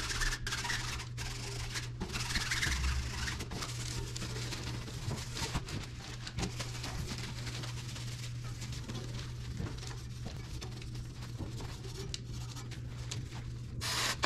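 Gloved hands rubbing and wiping a bicycle wheel's rim and tyre, a continuous rough scrubbing noise over a steady low hum. Near the end a short hiss from an aerosol spray can.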